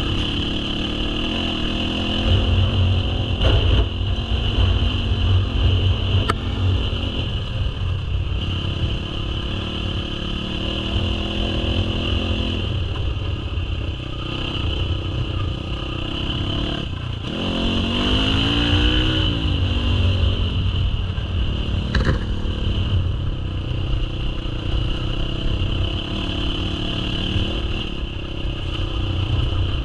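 Enduro dirt bike engine running under load as it climbs a rough, rocky trail. About halfway through it revs up and back down, and a few sharp knocks come through from the rough ground.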